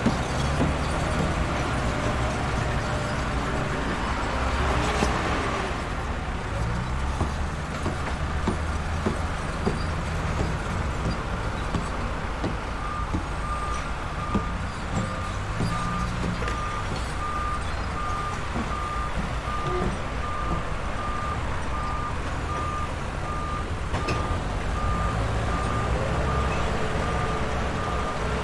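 Construction-site ambience: heavy machinery engines running with scattered knocks. From about halfway in, a vehicle's reversing alarm beeps steadily, about one and a half beeps a second.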